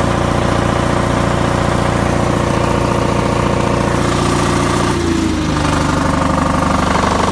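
Two-cylinder Onan diesel engine of a MEP-002A military generator running steadily. About five seconds in, its note changes, with a short falling whine.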